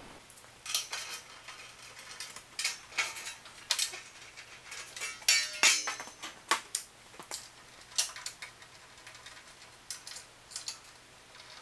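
Metal hand tools clinking and clattering as they are picked through in a steel tool chest: an irregular string of sharp clicks and knocks, one of them ringing briefly a little over halfway through.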